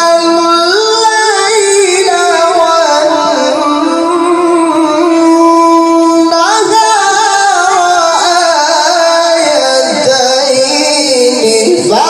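A male qari reciting the Qur'an in a high register, drawing out one long ornamented melismatic phrase with held notes, then rising into a new phrase about halfway through.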